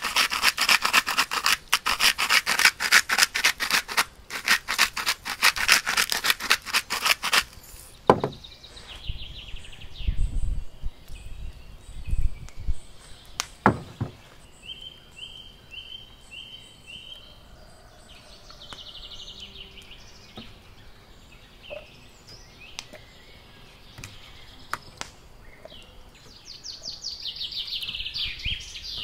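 Metal salt grinder being twisted, a rapid run of grinding clicks for about the first seven seconds that then stops. After it, birds chirp in short repeated calls, with a few sharp knocks of handling.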